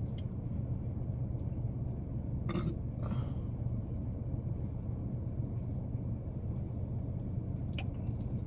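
A man drinking from a plastic water bottle, with a short burp about two and a half seconds in and a softer throat sound just after, over a steady low rumble inside the car; a faint click near the end.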